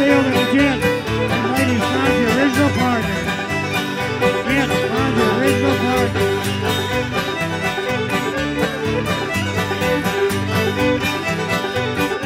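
Live old-time string band playing a square-dance tune on fiddles, banjo and guitar, with a steady, even beat.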